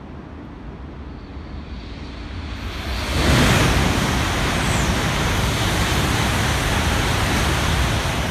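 E5 Hayabusa and E6 Komachi Shinkansen trainset passing through at high speed. A rush of air and rolling noise swells about three seconds in and then holds loud and steady.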